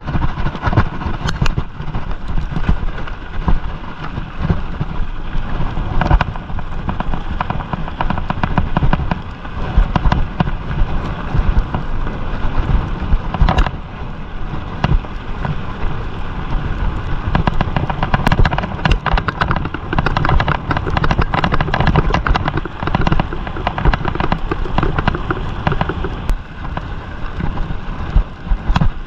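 Bicycle riding over a gravel road, heard from a camera mounted on the handlebars: a dense, steady crackle of tyres crunching on loose stones and the bike and mount rattling, over a strong low rumble.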